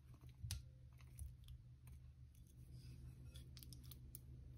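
Faint clicks and taps on glass: cubes of softened butter drop into a glass mixing bowl, the loudest knock about half a second in. Near the end comes a quick run of clicks as a wooden utensil knocks and scrapes against the bowl while working the butter.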